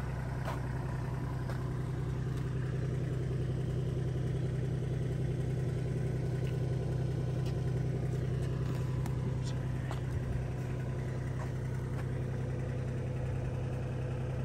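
Tractor engine running steadily at low speed, with a few faint ticks over it.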